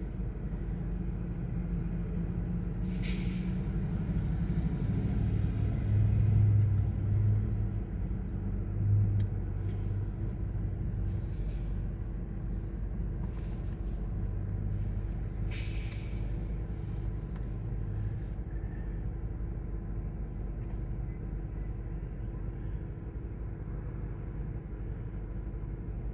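A steady low engine-like rumble with a constant hum, swelling louder about a quarter of the way in, with a few short knocks scattered through it.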